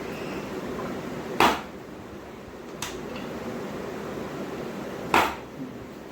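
Two sharp cracks about four seconds apart, with a faint click between them: neck joints popping under a chiropractic adjustment.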